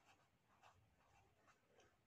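Very faint scratching of a pen writing on paper, in short strokes, against near silence.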